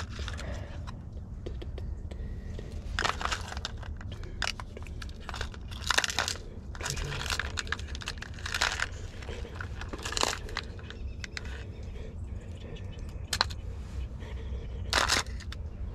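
Irregular rustling and crinkling handling noises, several short bursts louder than the rest, over a steady low rumble: fishing tackle and soft-plastic bait packaging being handled while a Ned rig is tied on.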